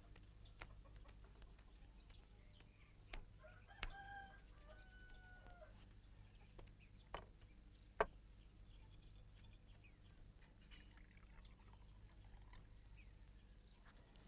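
Faint rural quiet under a low steady hum, with a rooster crowing once in the distance about four seconds in. A few light clicks and knocks come through, the sharpest about eight seconds in.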